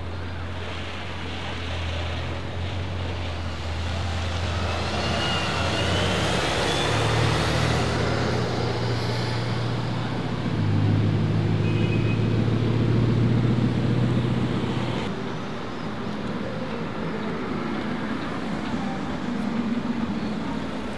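Bugatti Chiron's quad-turbocharged W16 engine running as the car rolls slowly past, a steady low drone that grows louder and slightly higher about ten seconds in. After an abrupt change, a second Chiron is heard driving by.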